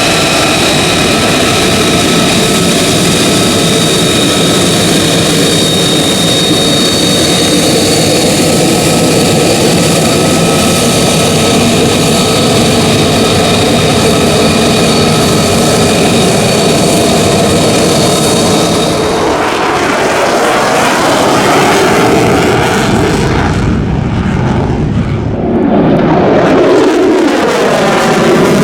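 F-35A Lightning II's single afterburning turbofan running loud, a steady high whine over the roar. About two-thirds of the way in the whine gives way to a sweeping, phasing roar as the jet moves past; the roar dips briefly and then swells again near the end.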